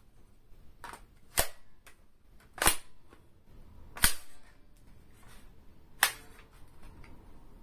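Airsoft gun being reloaded: four sharp clacks of its mechanism over a few seconds, with a fainter click just before the first.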